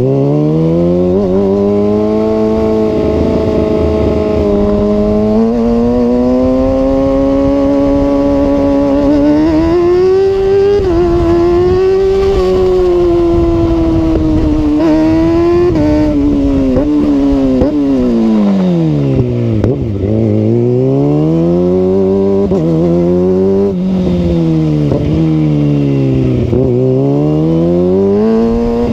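Kawasaki ZX-6 inline-four motorcycle engine running loud through a Two Brothers aftermarket exhaust. Its revs climb slowly and ease back, then dip and rise again three times in the second half.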